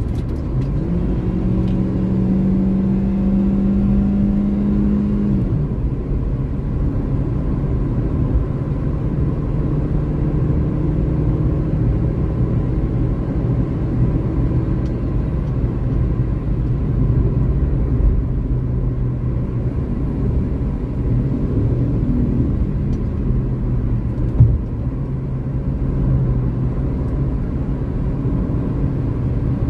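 Car engine and road noise heard from inside the cabin at highway speed, a steady drone and rumble. The engine note rises about a second in, holds for a few seconds, then falls back. There is a single sharp knock late on.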